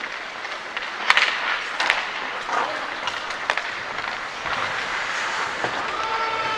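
Ice hockey play: skate blades scraping the ice and sticks clacking on the puck, with sharp knocks about a second in and again near two seconds.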